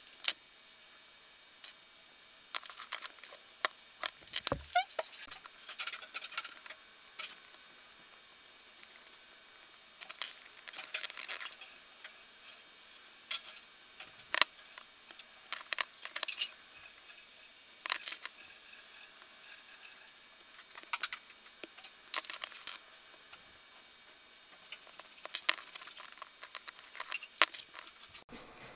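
Small 3D-printed plastic plates, metal pulleys, bearings and bolts being handled and fitted together: scattered clicks, taps and light rattles, some sharper than others.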